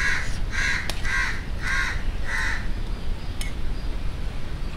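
A crow cawing, about five harsh calls in quick succession at roughly two a second, stopping about two and a half seconds in.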